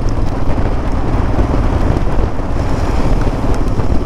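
Steady rushing wind buffeting the microphone of a moving motorcycle, a loud rumbling noise heaviest in the low end.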